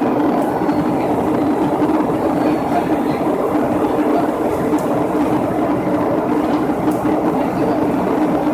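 Airliner cabin noise on the approach to landing: a steady drone of the engines and rushing air heard from inside the cabin, with a constant low hum underneath.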